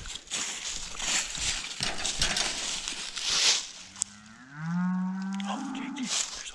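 A cow mooing once: a long low moo starting about four seconds in, rising in pitch toward its end and stopping about two seconds later. Before it, a rushing noise.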